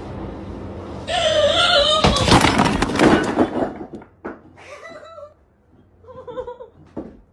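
A person's wavering high cry, then a jumble of thumps and rustling as the phone is jostled, then a few short, quieter cries.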